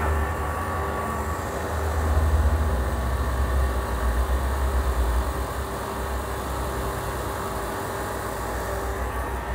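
Timken-type lubricant wear tester running, its electric motor spinning the test roller in the oil bath with a steady low hum; it gets slightly louder about two seconds in.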